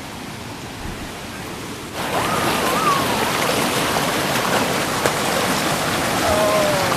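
Rushing water of a mountain stream's waterfall, a steady hiss that gets louder about two seconds in.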